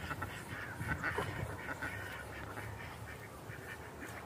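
A flock of ducks on a pond calling faintly, a few soft scattered quacks over a low steady background.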